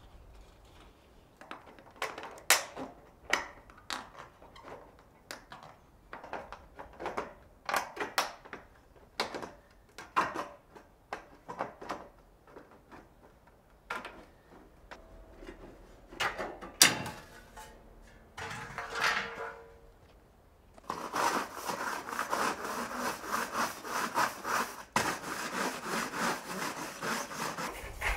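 Corrugated iron roofing sheet being cut by hand with snips: irregular sharp metallic crunches, one snip at a time, with a brief ringing rattle of the sheet near the middle. From about 21 seconds in, a stiff broom scrubs over the corrugated iron sheets in fast, continuous back-and-forth strokes.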